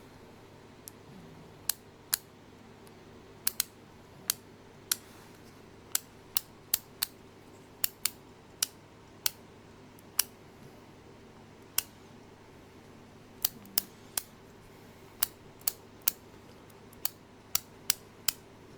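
A series of sharp, short clicks at irregular intervals, some in quick pairs, over a faint steady hum.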